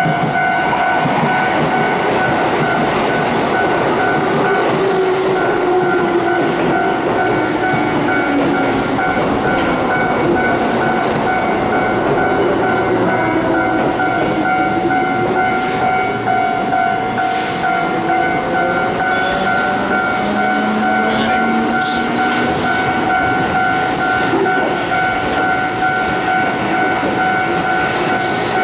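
Keihan electric commuter trains moving through a station: the traction motors whine, rising and falling in pitch, and the wheels clatter over rail joints, over a steady high ringing tone.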